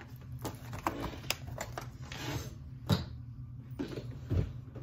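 Handling noises: scattered clicks and taps with a little rustling as packaging and small items are moved about, the sharpest click about three seconds in and a heavier knock near the end, over a low steady hum.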